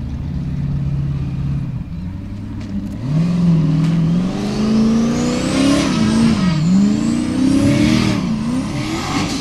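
Off-road competition car's engine holding a steady lower note for about three seconds, then revving hard with its pitch rising and falling several times as the car climbs a steep dirt bank under load.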